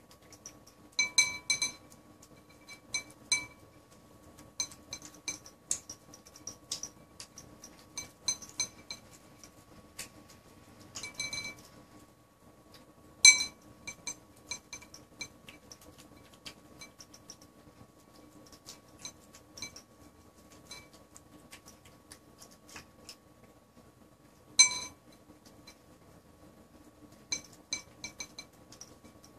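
Siamese cat eating tuna from a glazed ceramic bowl: many small wet chewing and licking clicks, broken by clusters of ringing clinks against the bowl, the loudest about 13 seconds in and again near 25 seconds.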